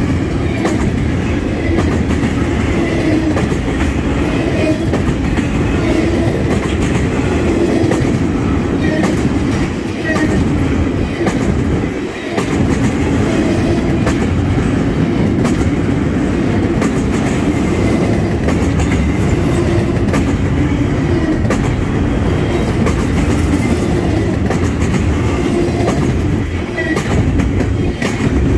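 Freight train of empty intermodal well cars rolling past close by: a loud, steady rumble of steel wheels on rail with frequent clicks as the wheels cross rail joints.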